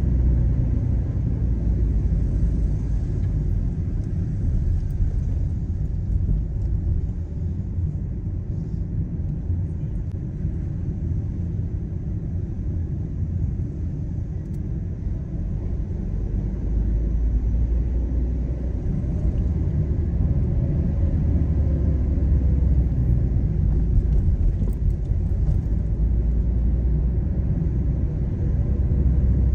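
Car being driven along a city street: a steady low rumble of engine and tyres on the road, easing a little midway and building again in the second half.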